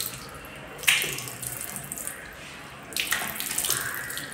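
Tap water running into a washbasin while a face is washed by hand, with two louder splashes, about a second in and again about three seconds in.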